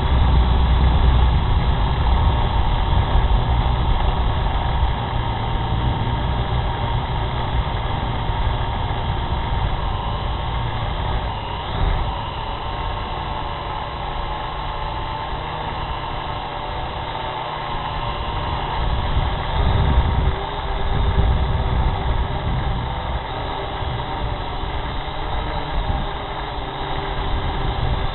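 Small drone's electric motors and propellers running with a steady multi-tone buzzing hum, recorded by the drone's own onboard camera, the pitch shifting slightly as it manoeuvres. Low rumbling swells in at the start and again about twenty seconds in.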